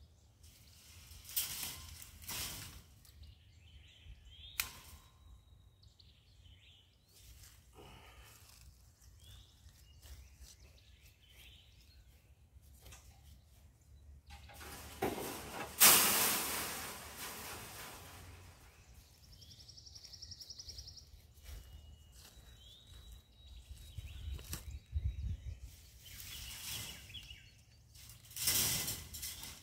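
Welded-wire cattle panels being handled: scattered knocks and rattles, a loud metal clatter about halfway through as a panel goes onto the trailer, and wire rattling and scraping near the end as another panel is lifted and dragged. Birds chirp now and then.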